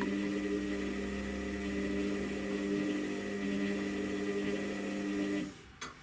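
Front-loading washing machine turning its drum of laundry, its motor giving a steady hum that stops about five and a half seconds in, as the drum pauses between tumbles. A sharp click follows just before the end.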